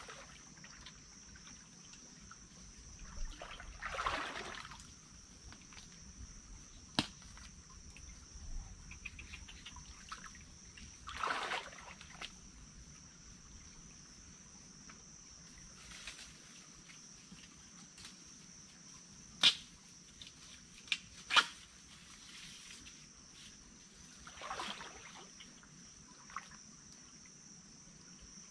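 Insects drone steadily in the forest while someone works through dry undergrowth. Several brushing rustles come and go, and a few sharp snaps stand out, the loudest two thirds of the way through.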